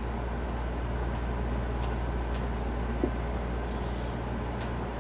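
Steady low hum and hiss of background noise, with a small click about three seconds in.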